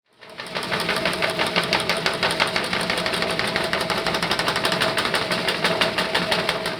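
A machine running with a rapid, even clatter over a steady hum, fading in at the start and out at the end.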